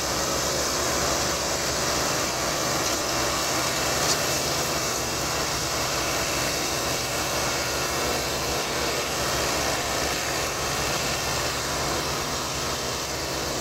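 Diesel farm tractors running hard under heavy load as they push and pull a cane-laden trolley that is bogged down in soft soil, a steady continuous engine drone.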